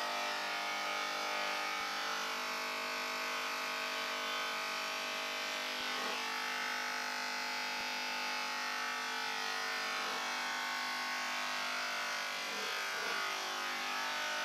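Electric hair clippers buzzing steadily as they run through hair.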